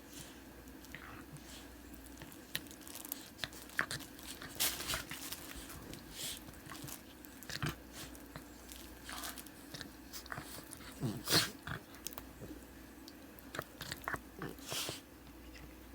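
Dogs mouthing and play-biting each other: irregular snaps, clicks and chewing crunches, picking up from about three seconds in, with the loudest crunch about two-thirds of the way through.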